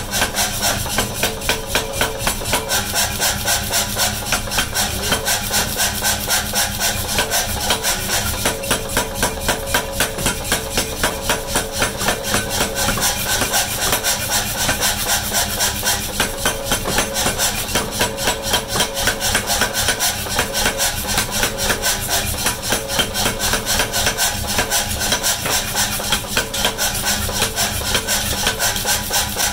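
A power hammer pounding a red-hot axe head on its anvil block in a fast, steady rhythm of several blows a second. The forging and cutting tools held on the hot steel take the blows, with the machine's steady running hum underneath.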